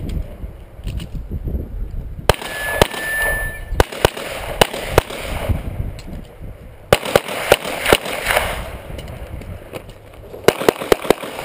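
Handgun shots fired in quick strings of several, with gaps of a second or two between strings. A steel target rings for about a second and a half after a shot a little over two seconds in.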